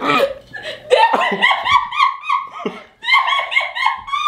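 A person's high-pitched, shrieking laughter in quick pulses, breaking off briefly about three seconds in, then rising into a held squeal near the end.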